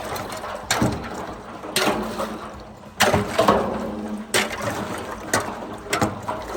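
Repeated hard knocks about once a second over sloshing water, as ice is broken out of a frozen chicken waterer.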